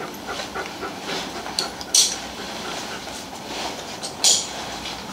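Metal harness hardware, the tandem rig's connectors and buckles, clinking and clicking as they are handled and hooked up, with sharp clinks about two seconds in and again a little past four seconds.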